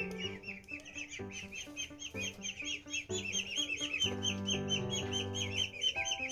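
A group of ducklings peeping continuously, many short high chirps a second, over background music.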